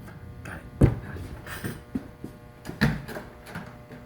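A man hiccuping: two short, sharp hiccups about two seconds apart, with a few faint knocks between them.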